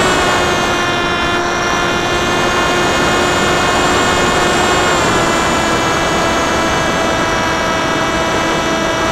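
Electric motor and propeller of a Popwing FPV flying-wing plane, heard from the onboard camera: a steady whine over wind rush, its pitch stepping down slightly about five seconds in.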